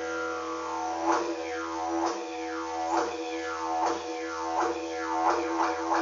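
Didgeridoo playing a steady low drone, shaped into sweeping accents about once a second that come faster near the end, played as an imitation of kangaroo sounds.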